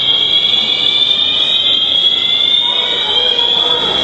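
A building fire alarm sounding throughout a shopping mall: a loud, continuous high-pitched tone, unbroken.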